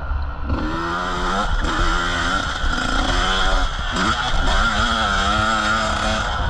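Motocross bike engine running hard, its pitch rising and falling again and again as the throttle is worked, over a steady low rumble.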